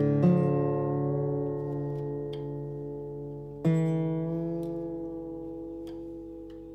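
Background music: guitar chords struck and left to ring out, fading slowly, with a fresh chord about three and a half seconds in.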